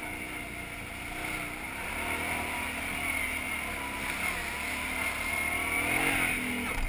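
ATV engine running under way through mud, its pitch rising and falling as the throttle changes, climbing about six seconds in.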